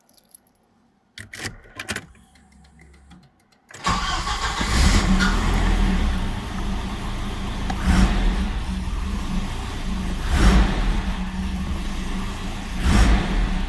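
Volvo 740 engine cold-started: after a few clicks and a faint low hum, the engine catches about four seconds in and runs at a rough, uneven idle, surging louder every two to three seconds. The rough idle when cold is the fault this car is known for, linked here to wet spark plugs.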